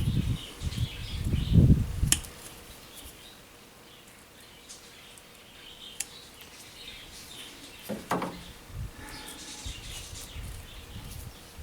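Outdoor ambience with small birds chirping. A loud low rumble comes near the start, and there are a few sharp clicks, one about two seconds in and another about six seconds in.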